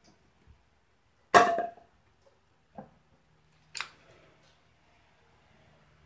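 A long wooden board knocking against a sofa's wooden frame as it is handled: one loud knock with a short ring a little over a second in, then two lighter knocks a few seconds later.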